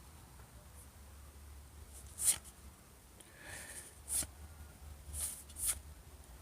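Soft swishes of trading cards sliding over one another as a pack is flipped through card by card: about four brief swishes and a softer rustle, over a low steady hum.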